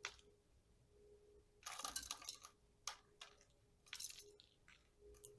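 Faint scraping and crinkling of bonsai wire being wound by hand around the trunk of a portulacaria afra cutting. The sound comes in several short bursts with single clicks between them.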